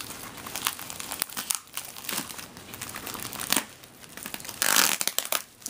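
Packaging being handled and opened, crinkling and rustling in irregular bursts, with a louder crinkle about four and a half seconds in.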